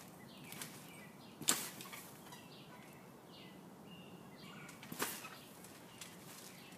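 Bounces on a backyard trampoline: sharp slaps of the trampoline mat as she lands, the loudest about a second and a half in and another about five seconds in.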